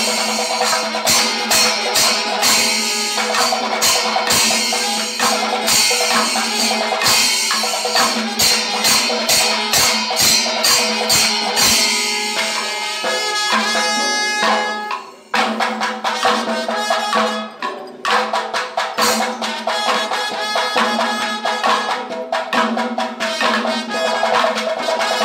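Traditional percussion music: a fast, steady beat of drums and clashing cymbals. The level drops sharply for a moment about fifteen seconds in, then the beat resumes.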